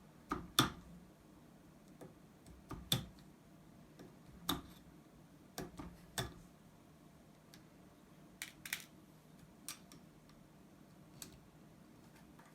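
Irregular sharp clicks and taps, about a dozen spread unevenly, some in quick pairs, from hitting an RJ45 jack to knock its gold-plated contact pins loose.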